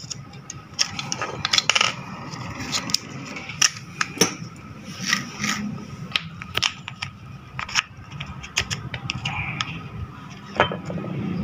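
Small metal parts and a screwdriver clinking and scraping against a juicer motor's housing as the rewound motor is reassembled: a string of sharp, irregular clicks and clinks.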